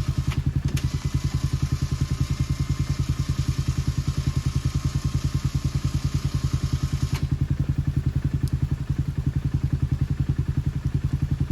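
Small utility vehicle engine idling with a steady, fast chugging pulse.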